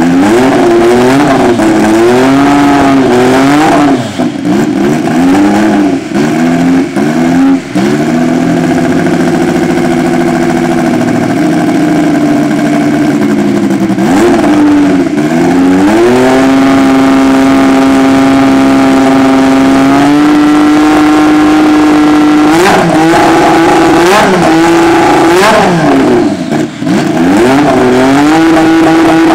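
1988 McLaren Honda MP4/4's 1.5-litre turbocharged Honda V6 running stationary and very loud, blipped repeatedly on the throttle, then held at steady raised revs. The held note steps up once partway through, and more quick blips come in the second half.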